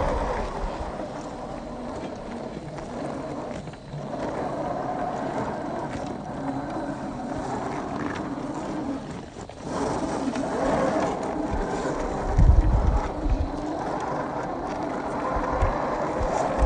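Electric motor and drivetrain of a 1/10 scale RC off-road truck running under throttle, its whine wavering up and down in pitch and dropping briefly twice. A short burst of low rumble, like wind on the microphone, comes about twelve seconds in.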